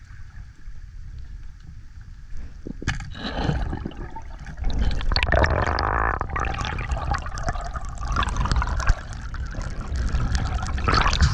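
Water sloshing and gurgling around an action camera, with dense crackling of bubbles and splashes. It gets louder about four and a half seconds in.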